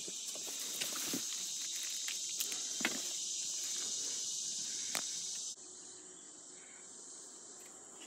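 Steady high-pitched insect chorus from the creekside woods, with scattered footsteps and rustling of undergrowth over the first five seconds or so. The sound drops abruptly about five and a half seconds in, leaving the insects fainter.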